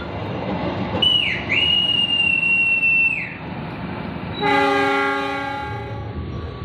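A conductor's whistle blown for about two seconds, a single high note with a quick dip near its start: the semboyan 41 departure signal. About a second later, a short blast of the locomotive's multi-note horn answers it (semboyan 35).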